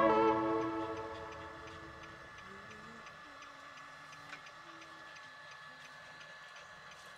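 Background music fades out in the first second or so, leaving a vehicle's turn signal ticking faintly and evenly inside the cab.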